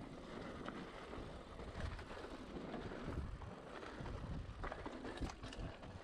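Cannondale Trail SL 4 mountain bike descending a rough dirt trail: the tyres rumble over dirt and stones, with a run of irregular rattles and knocks from the bike as it rolls.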